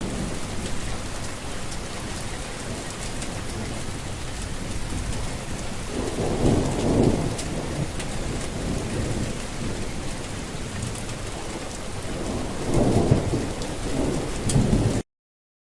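Steady heavy rain with two rolls of thunder, one about six seconds in and one near the end. The sound starts and stops abruptly.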